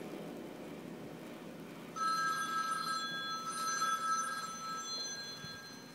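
Electronic telephone ringing, starting about two seconds in as short bursts of a steady high electronic tone, about a second each, as a phone call rings through.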